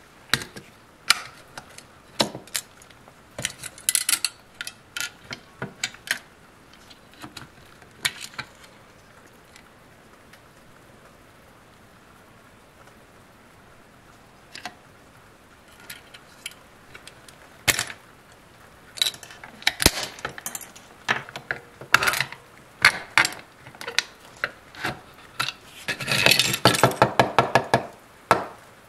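Small plastic and metal parts of an action figure being handled and taken apart: scattered clicks and taps, a quiet stretch in the middle, then denser clicking and a fast run of ticks near the end.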